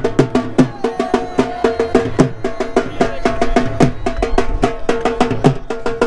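Music of fast, steady drumming: several sharp drum strikes a second over pitched drum notes, with no break.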